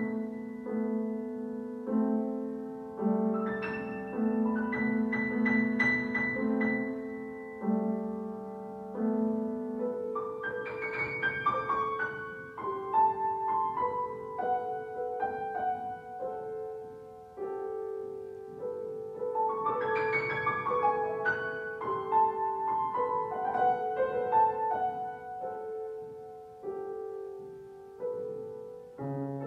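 Steinway & Sons grand piano played solo: held chords in the middle range, with quick runs of higher notes breaking in a few seconds in, at about ten seconds and at about twenty seconds.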